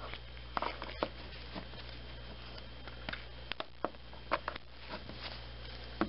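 Small, irregular plastic clicks and light scrapes as the Nexus 5's back-cover catches are pried and snapped loose with a jeweler's screwdriver, over a steady low electrical hum.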